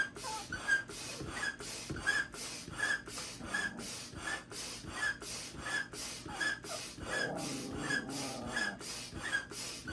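Double-action hand pump inflating an inflatable paddle board: a rhythmic rush of air about three times a second, pushing air on both the up and down stroke.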